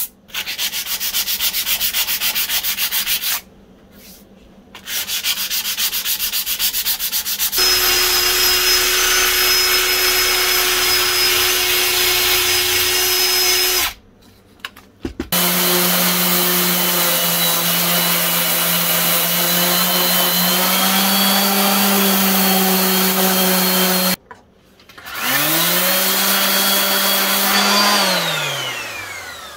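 Hand sanding of a cast-iron vise body with 80-grit paper on a block, in quick rubbing strokes, for the first several seconds. Then a cordless drill with a small wire brush runs against the cast iron in several short stretches, its motor at a steady pitch. Near the end a tool motor spins up, runs briefly and winds down.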